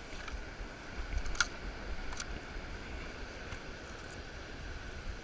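Wind buffeting the microphone, with surf in the background and a faint steady high tone underneath. Two sharp clicks come about a second and a half and two seconds in.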